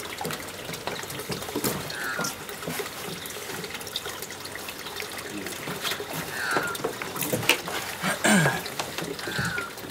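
Outdoor ambience of water trickling and lapping, with a few short, high, falling bird chirps and some light knocks.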